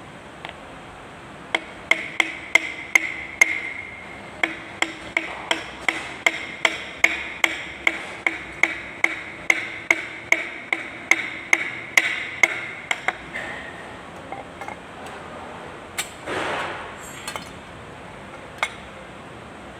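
Steady hammer blows on a wooden block, driving a piston with its rings down through a metal ring compressor into the cylinder bore of a Kubota Z851 two-cylinder engine, about three strikes a second. Each strike leaves the compressor sleeve ringing. The blows stop about thirteen seconds in, and a short scrape and a click follow near the end.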